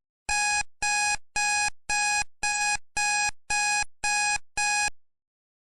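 Countdown timer sound effect: nine electronic beeps, about two a second, marking the time left to answer.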